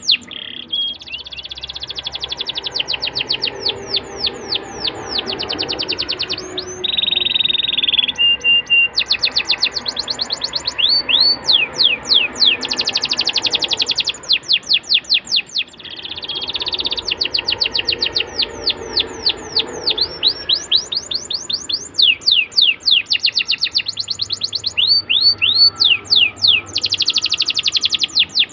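Domestic canary singing in long, fast trills of repeated sweeping notes. A short steady whistle comes about seven seconds in, and there is a brief lull about halfway through.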